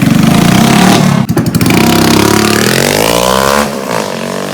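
Hero Splendor motorcycle's single-cylinder engine running loud and open through a bend pipe with no silencer. It revs up with a brief dip about a second in, climbs in pitch, then falls away near the end.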